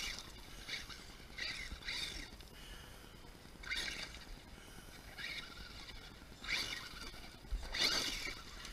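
Electric RC truck running in several short throttle bursts: a motor whine comes and goes, with a gritty scrape from the tyres on the ground.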